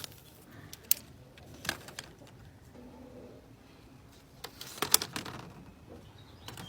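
Sharp light clicks and taps of eggs knocking against each other as they are gathered from a nest box: single clicks early on, then a quick cluster of taps a little before the end.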